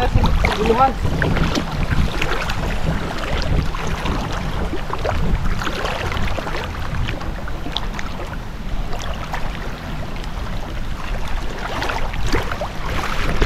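Water splashing and sloshing as people wade through shallow seawater, hauling a fishing net, with wind buffeting the microphone.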